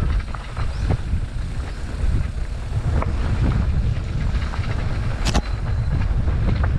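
Wind buffeting the microphone on a moving electric mountain bike, a steady rumble with scattered clicks and rattles from the bike over the trail, and one sharp crack about five seconds in.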